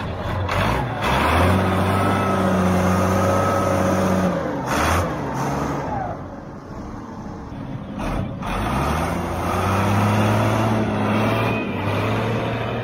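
Diesel engine of an International E211 pay scraper running under load as the machine pulls away, revving up, holding, easing off about halfway, then revving up again.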